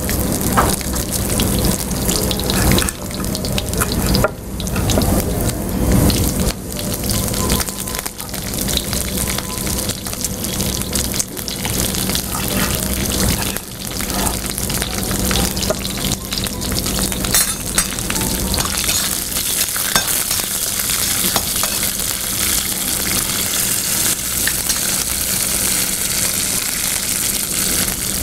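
Tempering of mustard seeds, dals and garlic frying in hot oil in a brass kadai: a steady sizzle that grows brighter and louder in the last several seconds. Short knocks of a knife chopping green chillies on a wooden board come through in the first half.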